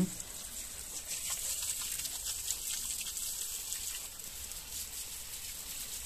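Water spraying from the pinched end of a hose onto a motorcycle chain and sprocket, a steady hiss with light irregular splatter, rinsing off dirt that diesel has loosened.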